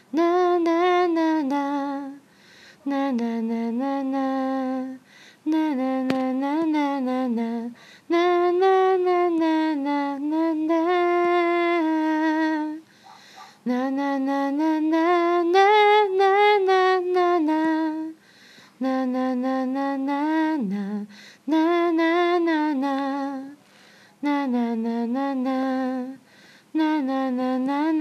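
A woman singing a wordless tune unaccompanied, in short melodic phrases with brief pauses for breath between them.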